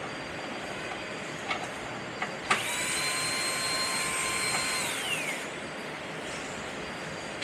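A small electric power tool, like a cordless drill or screwdriver, runs with a steady high whine for about two and a half seconds after a few sharp clicks, then its pitch falls as the motor winds down.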